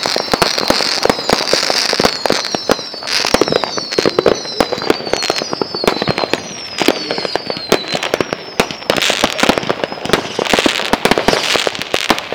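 Fireworks going off: a rapid crackle of bangs with many short whistles falling in pitch over the first two-thirds, then hissing bursts near the end.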